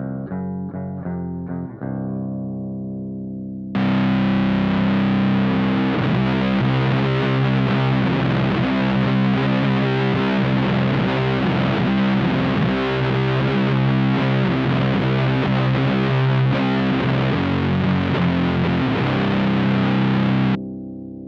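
Electric guitar through a clean-set 1969 Laney Supergroup valve amp: a few picked notes in a clean tone, then about four seconds in a one-knob fuzz pedal is stomped on and the heavy riff is played thick with fuzz, much louder. Near the end the fuzz is switched off and the tone drops back to clean.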